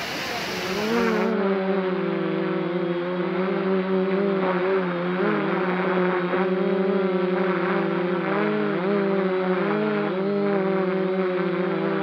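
Camera drone's propellers and motors humming steadily, the pitch wavering slightly as it flies. For about the first second, before a cut, the rushing of a waterfall is heard instead.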